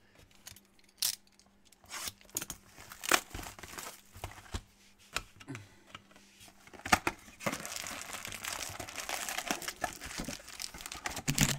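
A 2020 Panini Prizm No Huddle trading-card box being opened by hand, with scattered sharp crackles and tearing, then foil card packs crinkling steadily as they are pulled out of the box, from about seven seconds in.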